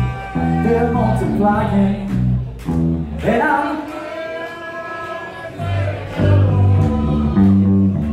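Live band music: electric and acoustic guitars over a bass line of low notes stepping from one to the next, with a voice singing around the middle.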